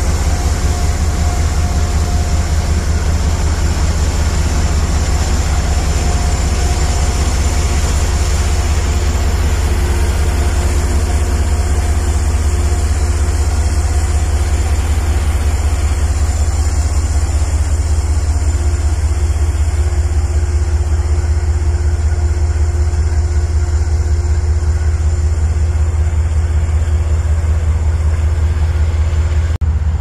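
Diesel engine of an Amtrak P32AC-DM locomotive running steadily while stopped at a platform: a heavy, unbroken low drone with a steady hum over it.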